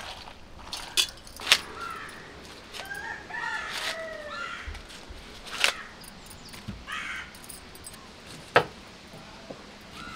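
A rooster crowing: one long call about three seconds in, falling at the end, with a shorter call a few seconds later. A few sharp knocks or taps stand out around it.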